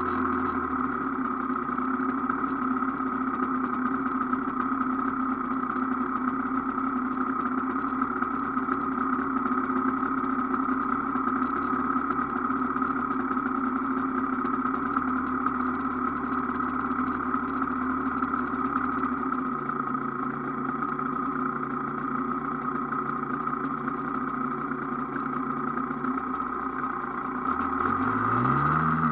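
Aprilia AF1 motorcycle's two-stroke engine idling steadily at a standstill, then revved up and back down near the end.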